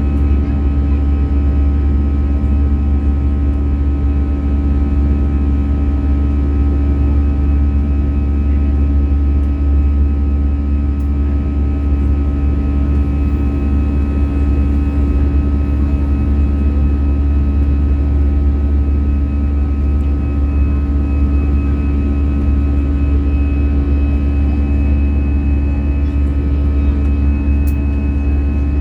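Airbus A321 jet engines and airflow heard inside the cabin in flight: a steady, loud low drone with a few constant whining tones above it, unchanging throughout.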